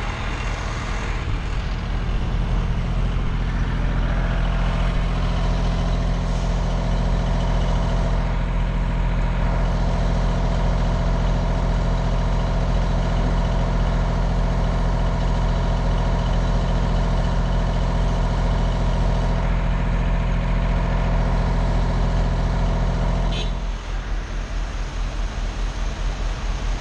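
Fire truck's diesel engine running steadily at high revs, then dropping back to a lower, rougher idle about 23 seconds in.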